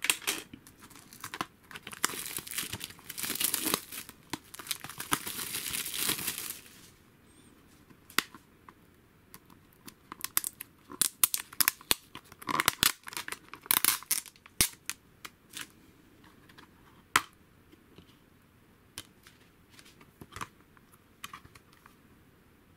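Plastic shrink-wrap being torn and crinkled off a Blu-ray case for about the first six seconds, then scattered sharp clicks and snaps as the plastic case is handled and opened.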